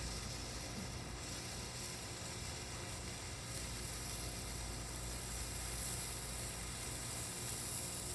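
Winda Hanabi sparkler burning with a steady fizzing hiss that grows a little louder about three and a half seconds in.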